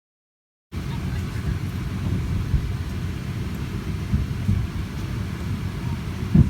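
Steady low rumble of a Boeing 737-900's jet engines and airflow heard from inside the cabin, starting abruptly about a second in, with a few small thumps.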